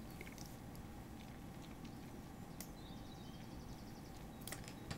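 Quiet room tone: a steady low hum and hiss, with a few faint clicks and a brief faint high chirping about three seconds in.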